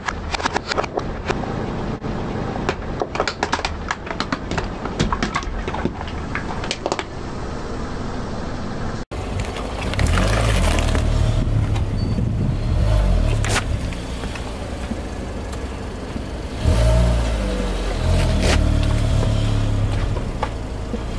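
A car tyre rolling slowly over plastic toy soldiers, which crack and snap in many quick sharp clicks. After a sudden break about nine seconds in, a car's low engine and tyre rumble as the tyre presses onto a pumpkin, with heavier thumps as it rolls onto the pumpkin and off again.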